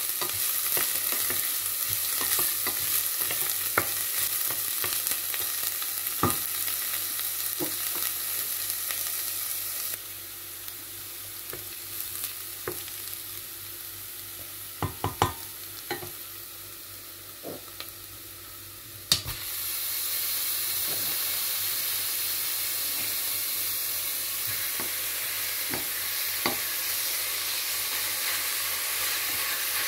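Chopped onion and garlic sizzling in hot oil in a stainless steel pot, with a wooden spoon stirring and scraping and knocking now and then against the pot. The sizzle drops for several seconds around the middle, then comes back louder after a sharp knock about two-thirds in, with ground beef frying in the pot by the end.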